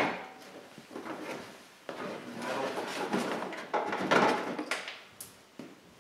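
A 2005 Hyundai Elantra's plastic front bumper cover being pulled free and lifted away, the plastic scraping and rubbing with several sharp clicks.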